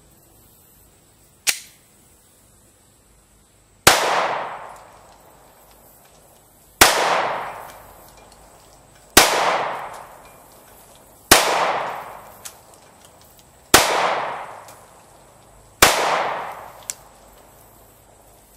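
Glock 19 Gen 4 9mm pistol fired six times in slow, deliberate single shots about two to two and a half seconds apart, each shot followed by a fading echo. A single sharp click sounds about a second and a half in, before the first shot.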